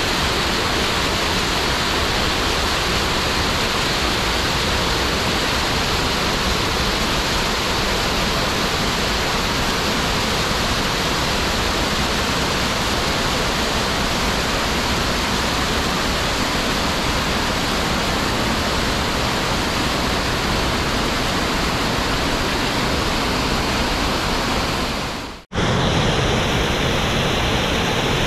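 A small waterfall pours over rock into a pool: a steady, loud rush of falling and churning water. Near the end the sound briefly drops out and comes straight back, a little fuller and deeper.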